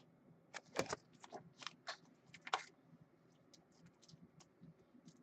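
Irregular clicking of typing on a computer keyboard: a run of sharper keystrokes over the first couple of seconds, then fainter, sparser taps.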